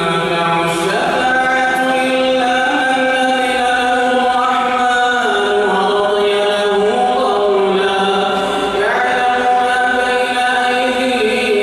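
A solo male voice chanting Quran recitation in the melodic tajweed style, holding long notes and sliding between pitches from phrase to phrase.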